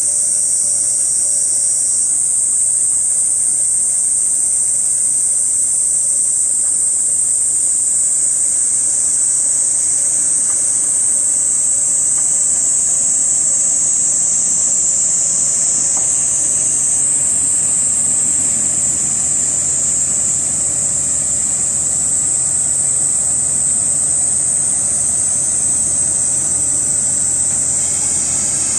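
Cicadas buzzing in a loud, steady high-pitched chorus, with the low engine rumble of a Kominato Railway KiHa 200 diesel railcar growing louder through the second half as it pulls into the station.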